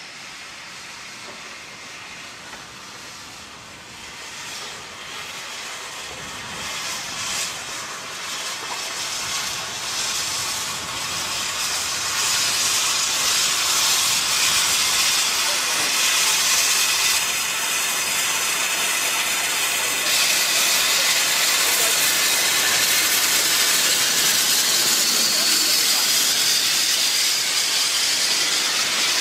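Narrow-gauge steam locomotives Palmerston, Welsh Pony and Prince, three small George England tank engines, moving slowly with a continuous steam hiss from open cylinder drain cocks. The hiss grows louder over the first twelve seconds or so as they come closer, then stays steady.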